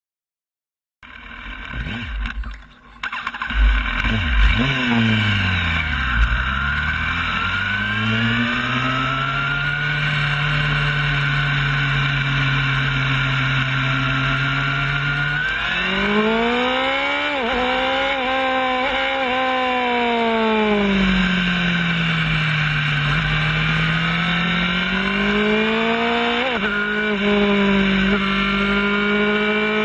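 Onboard sound of a racing sport motorcycle's engine with wind rush: the engine holds a steady note at low speed, then revs climb sharply about halfway through as the bike accelerates. The pitch then sinks and rises again with the throttle, with a short sharp click near the end.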